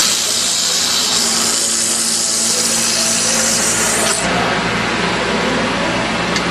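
Dowel milling machine cutting wood: a loud high-pitched hiss of the cutter shaving stock starts at once and stops sharply about four seconds in, leaving the machine's motor running steadily.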